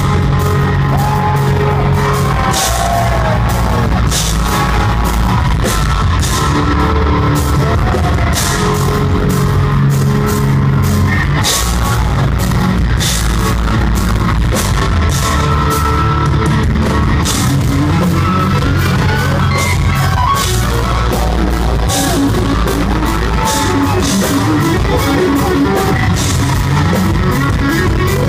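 Instrumental progressive metal band playing live: eight-string electric guitars and a drum kit, with intricate guitar lines over a heavy low end and frequent sharp drum and cymbal hits. It is heard loud from within the crowd in a club hall.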